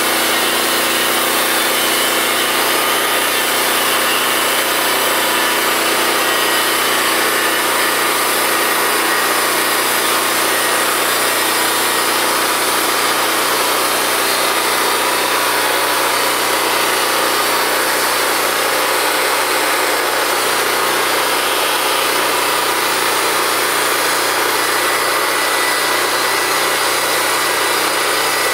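Gas engine of a Norwood portable bandsaw mill running steadily under load as the band blade is pushed through a squared cedar log.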